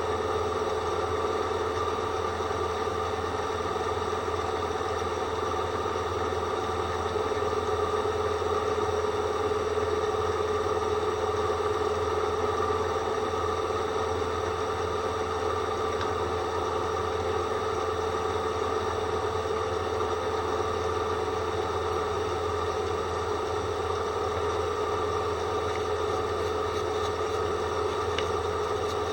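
A drill boring with a dull bit that whistles: a steady, pitched whistle with several overtones, the sign of a blunt cutting edge rubbing instead of cutting.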